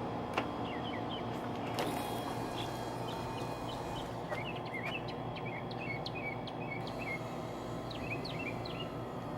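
Small birds chirping in short scattered calls over a steady low hum, with a couple of sharp clicks in the first two seconds.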